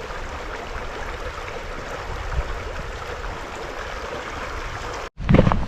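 Creek water running steadily, an even rush of flowing water. About five seconds in it cuts off abruptly and louder sharp knocks follow.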